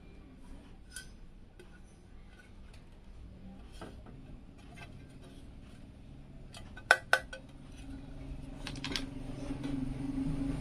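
Thin sheet-steel HDD/SSD mounting plates handled, light metallic clinks and taps, with two sharp clicks close together about seven seconds in and a few more near nine seconds. A low hum rises over the last few seconds.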